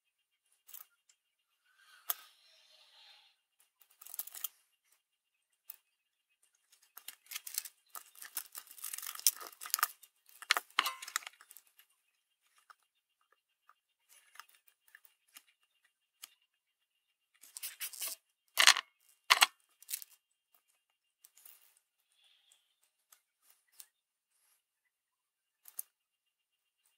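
Small handling noises: soft rustling and scattered light clicks as 5 mm LEDs are picked out of a small clear dish and their legs pushed through the holes of a circuit board. There is a busier patch of rustling a third of the way in and a few sharper clicks about two-thirds through.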